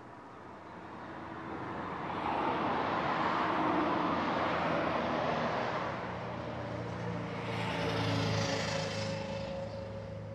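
A motor vehicle passing by: engine and road noise swells over the first few seconds, eases, swells again about eight seconds in, then begins to fade near the end.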